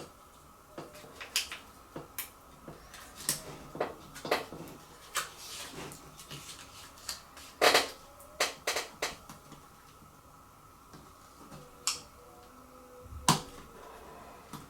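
Irregular small clicks and taps of small hand tools and parts against the opened MacBook Pro's internals, during work on its screws and a tab. The sharpest clicks come about halfway through and near the end.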